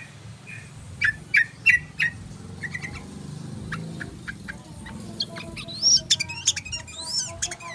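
Yellow-vented bulbul (trucukan) calling: a few short, sharp chirps, then a quicker run of rising whistled notes near the end, over a steady low hum.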